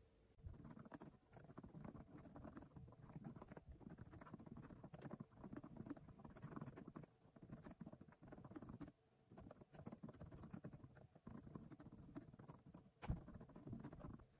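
Quiet clatter of fingers typing on a laptop keyboard in quick runs of keystrokes, with a couple of short pauses and one louder key strike near the end.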